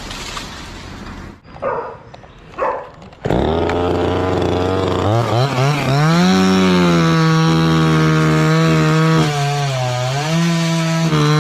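Two-stroke chainsaw coming to life after two short bursts, idling briefly, then revved to full throttle and held at a high, steady whine. Its engine note dips and recovers as it bites into jackfruit wood.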